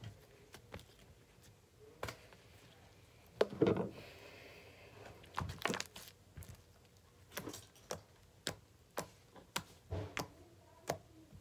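Homemade white slime squeezed and pulled by hand, giving a run of short sticky pops and clicks, with a louder crackling squelch about three and a half seconds in.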